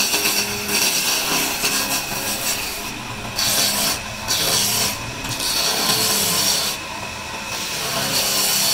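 Hand-held turning chisel cutting a spinning wooden blank on a wood lathe: a loud, steady rasping hiss as the tool peels off shavings. It breaks off for a moment several times as the tool is lifted from the wood.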